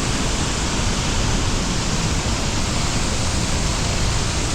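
Waterfall pouring: a steady, even rush of falling water with no breaks or changes.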